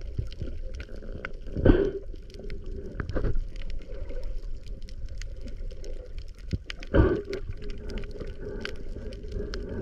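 Water sloshing and gurgling over a steady low rumble, with many scattered sharp clicks and two louder surges, about two seconds and seven seconds in.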